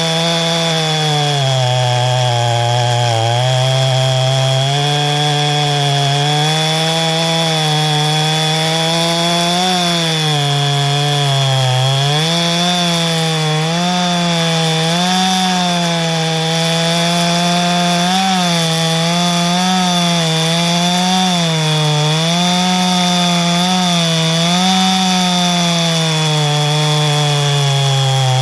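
Ported two-stroke chainsaw cutting green hardwood under load, its engine pitch dipping and recovering again and again as the chain digs in and clears.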